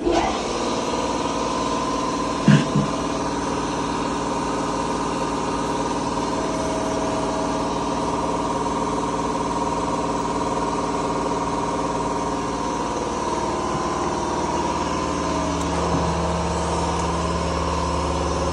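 Paul OTT S40 edge-banding machine's electric motors running: a steady machine whine made of several steady tones that comes on abruptly. A brief knock sounds about two and a half seconds in, and a deeper hum joins in near the end.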